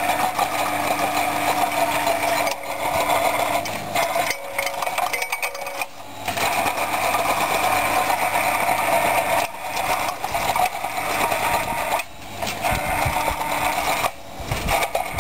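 Hydraulic rotary hoe's steel tynes spinning at about 250 rpm and churning through crushed aggregate rock, a steady mechanical running noise. Several times it breaks off briefly, as happens when rocks jam the tynes and the tool is reversed to clear them.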